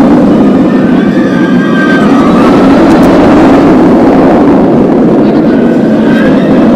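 Loud, steady rushing noise, with brief, faint high tones about a second in and again near the end.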